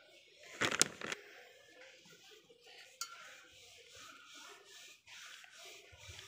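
Wooden rolling pin knocking on a wooden board in a short clatter about half a second in, then rolling paratha dough out on the floured board, with one more light click near the middle.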